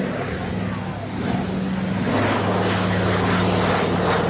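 A PBY Catalina's two Pratt & Whitney R-1830 Twin Wasp radial engines and propellers droning steadily in a low flypast, growing louder about a second in as the aircraft comes close.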